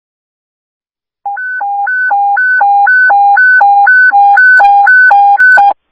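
Fire dispatch alert tone over the fire radio: a low tone and a high tone alternating about twice a second, starting just over a second in and cutting off near the end, with a few crackling clicks in its last second.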